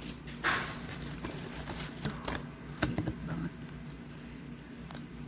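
Thin plastic carrier bags rustling and crinkling as groceries are rummaged through and moved about, with the loudest crinkle about half a second in and a few light knocks of packages on the table.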